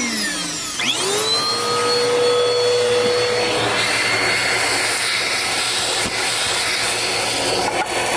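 Vacuum cleaner motor spinning up with a rising whine about a second in, then running steadily with a loud rushing hiss.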